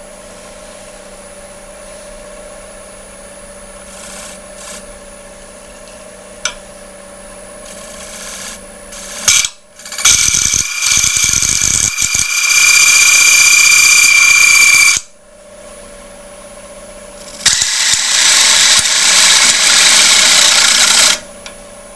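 Wood lathe running with a bowl spinning, then the cutter wheel of a texturing and spiralling tool pressed to the wood twice: a loud rasping hiss with a high steady whine, about nine seconds in for some five seconds and again near the end for about three and a half seconds.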